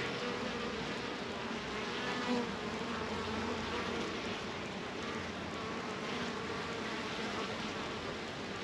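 Honeybees buzzing steadily around their hive, the even hum of many wings together.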